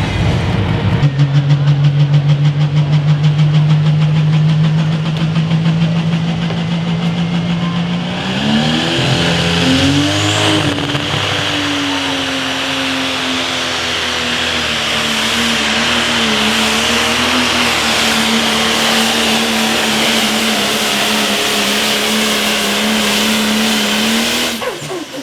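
John Deere Pro Stock pulling tractor's turbocharged diesel engine running flat out under load during a pull. It holds one steady pitch, climbs about eight seconds in and holds higher, then cuts off suddenly near the end.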